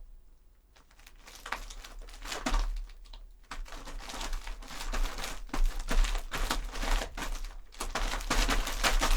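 Foley footsteps in leather shoes crunching on gravel in a box. They start about a second and a half in and grow louder and denser toward the end.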